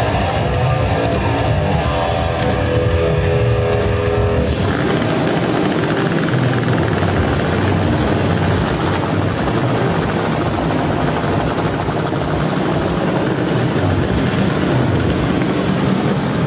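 Loud live rock music: distorted electric guitar played over a mass of motorcycle engines running. About four and a half seconds in, the held notes give way to a denser, noisier wall of sound.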